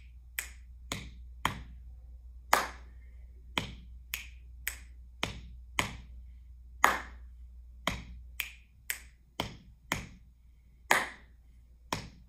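Body percussion at a slow, even tempo: palm pats on the chest, sharp finger snaps and a hand clap, repeating in a cycle of pat, snap, snap, pat, pat, clap. Each cycle takes about four seconds and closes on the clap, the loudest stroke.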